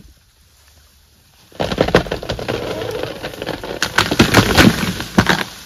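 An African elephant breaking a tree: about one and a half seconds in, a sudden burst of wood cracking and snapping with rustling leaves, going on for about four seconds with the sharpest cracks near the end.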